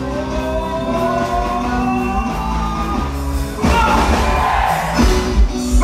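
Quadrilha junina show music: a song with singing over a band, with a louder, noisier burst about two-thirds in.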